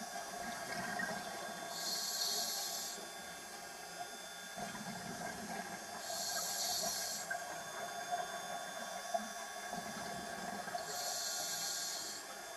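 Scuba diver's regulator breathing underwater: a sharp hiss on each inhalation, three times about four and a half seconds apart, with the low bubbling of the exhalations between them.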